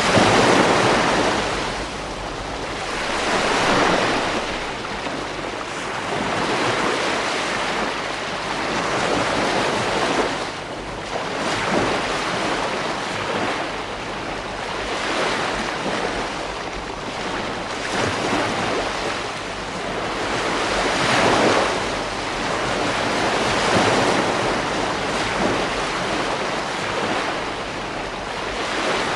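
Waves breaking on a beach, washing in and out again every few seconds, with wind noise on the microphone.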